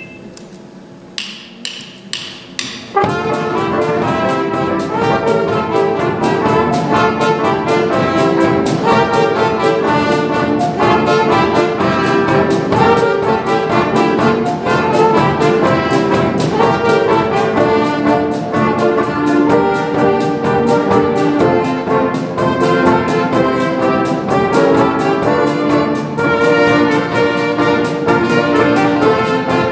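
Brass music with a fast, even beat, coming in loudly about three seconds in after a few short hits.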